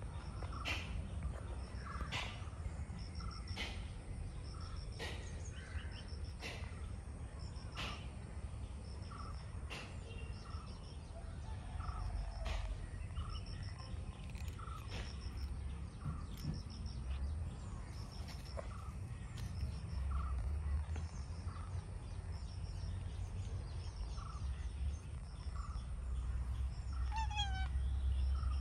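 Outdoor bird calls: a sharp call repeated about every second and a half, with smaller chirps throughout and a quick falling run of chirps near the end, over a low rumble.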